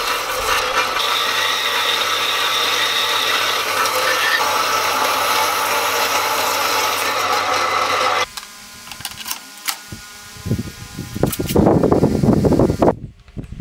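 Bandsaw blade cutting through a mild steel block: a steady motor hum under a bright metal-cutting hiss, which stops abruptly about eight seconds in. Near the end come irregular knocks and scraping from handling the steel.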